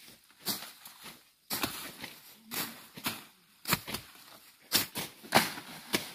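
Grass and brush being cut by hand with a blade: irregular swishing strokes through vegetation with rustling leaves, about one or two a second, the sharpest ones just after the middle.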